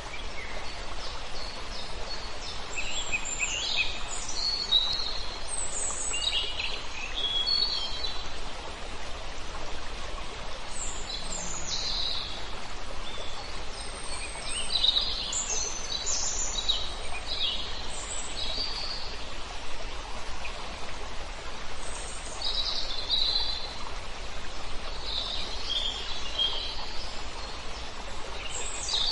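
Several birds chirping and calling in short, scattered phrases over a steady rushing hiss and low rumble of outdoor background noise.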